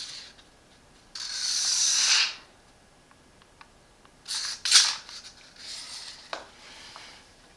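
Handling of a small plastic laser level with built-in tape measure: a rasping slide about a second long, as of the tape being drawn out, then a few shorter rubs and light clicks.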